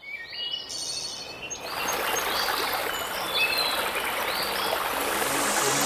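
Small birds singing with short whistled notes. About a second and a half in, a shallow stream starts running over stones, with a few bird calls still over it.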